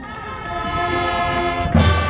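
Marching band holding a sustained brass chord that swells in loudness, then a loud full-band hit with drums about 1.7 seconds in.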